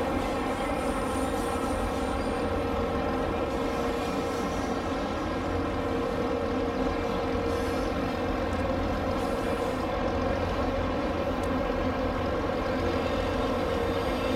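HO-scale model diesel locomotive's sound system playing a steady diesel engine drone through its small onboard speaker as the model runs along the track.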